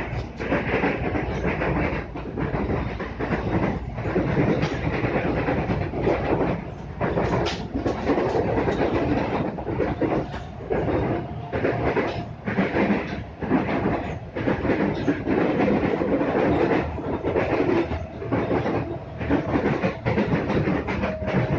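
KRL electric commuter train running, heard from inside the carriage: a continuous rumble and clatter of wheels on the rails.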